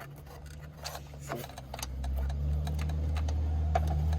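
Scattered small clicks and rustles of spliced wires and heat-shrink tubing being handled and pushed into place, over a low steady rumble that grows louder about halfway through.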